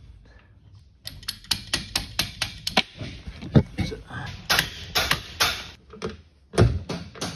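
Quick runs of light metallic clicks, about four a second, coming in several bursts, from hand tools worked on metal fittings.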